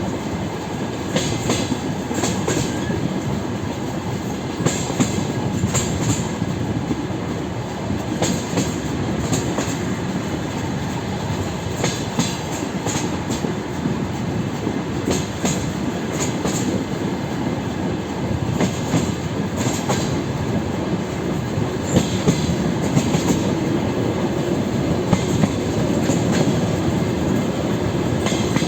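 DR1A diesel railcar train running at speed, wheels knocking over rail joints in clusters of clicks every few seconds over a steady rumble of running noise.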